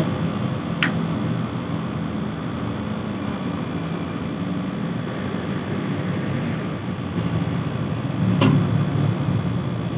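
Steady low mechanical hum of a running machine, with two sharp knocks, one about a second in and one near the end.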